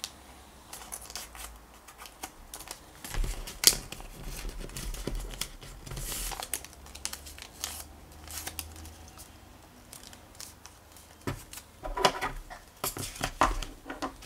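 Thick paper being folded and creased by hand: irregular rustling and crackling with sharp taps, a loud one about four seconds in and a cluster of them near the end.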